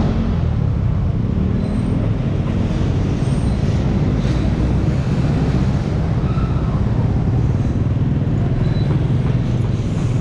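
Diesel engine idling steadily, over passing motorcycles and street traffic.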